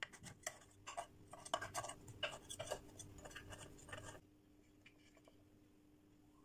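A knife scraping and clicking against the metal cups of a muffin tin as it is run around baked muffins to loosen them: short, irregular scrapes, several a second, that stop abruptly about four seconds in, leaving only a faint low hum.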